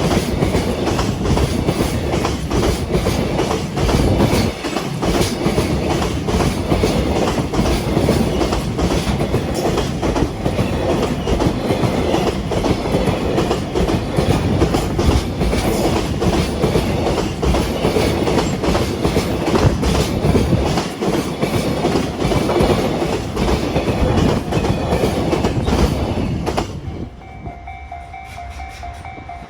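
Freight train wagons running past at close range: a loud, continuous rumble of wheels on rail with rapid, repeated clicks from the rail joints and the crossing. About three seconds before the end the train noise drops away suddenly, leaving the level-crossing warning bell ringing as a steady tone.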